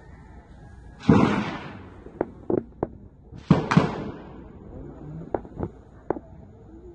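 Gunshots with echoes trailing off: one loud shot about a second in, two more in quick succession about two and a half seconds later, and fainter single shots scattered between and after.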